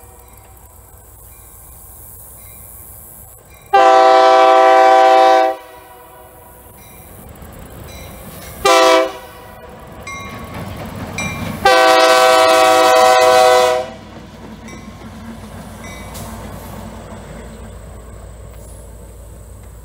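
A diesel switcher locomotive's air horn sounding for a grade crossing: a long blast, a short one, then a final long blast, with the crossing bell dinging faintly between them. The locomotive's engine rumble grows as it nears.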